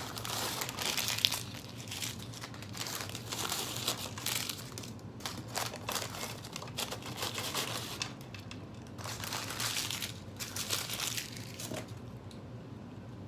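Paper fast-food packaging, fry cartons and wrappers, crinkling and rustling as it is handled and emptied of fries. The crinkling comes in several bursts and dies down near the end.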